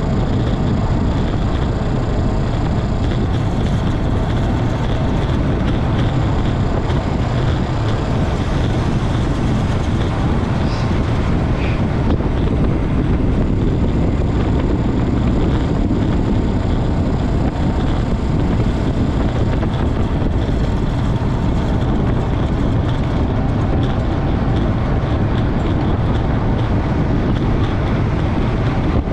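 Steady wind noise buffeting the camera microphone as a road bike descends at about 40 mph, mostly coasting.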